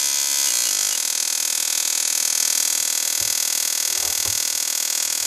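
High-voltage spark from a CDI ignition box jumping a 10 mm gap in a spark-gap tester, firing continuously as a steady hissing buzz at a low simulated engine speed of about 1,000 rpm.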